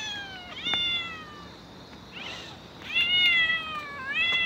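A cat meowing repeatedly, four long calls in a row, each falling in pitch.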